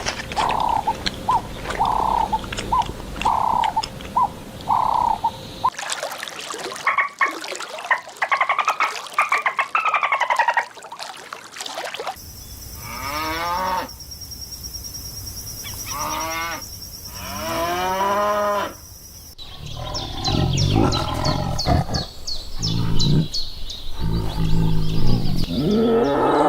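A run of different animal calls in four separate recordings, cut hard one to the next every six or seven seconds. First comes a steady series of short pitched calls about twice a second, then arching calls, then repeated falling calls over a steady high-pitched drone, then a busier mix of calls.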